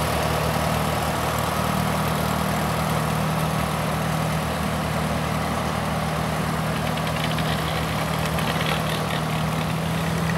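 Vintage Allis-Chalmers tractor's engine running steadily at low speed as the tractor drives slowly off, with an even low firing beat.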